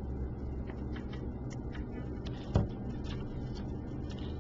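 Faint clicks and taps of test-lead clips and wires being handled, with one louder knock about two and a half seconds in, over a steady low hum.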